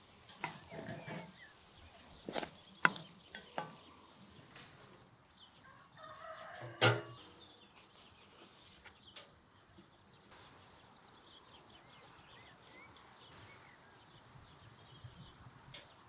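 Sharp clicks and knocks of a wooden spatula and fork against a steel frying pan as a fried flatbread is turned and lifted out, most of them in the first four seconds. A louder clatter comes about seven seconds in, then only a faint steady background.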